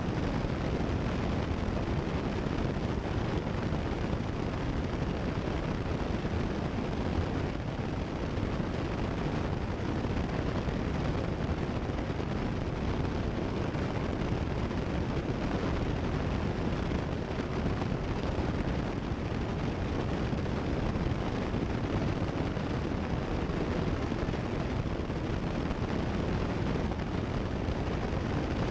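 Steady cabin drone of a Cessna 172 Skyhawk in cruise flight: engine and propeller noise mixed with airflow, holding an even level throughout.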